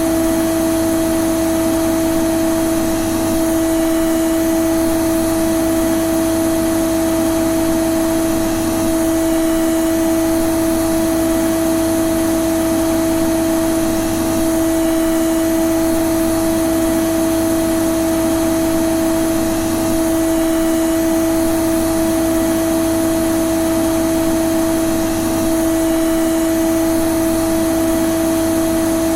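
Vacuum cleaner running continuously, a steady whirring drone with a constant hum over its airflow hiss.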